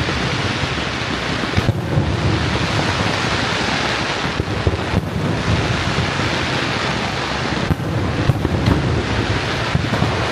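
Fireworks show, heard as a dense, continuous rumble of bursts with a few sharper cracks standing out, mixed with wind on the microphone.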